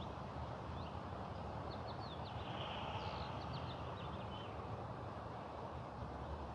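Faint outdoor background with a steady low hum and a scatter of short, high bird chirps in the first half.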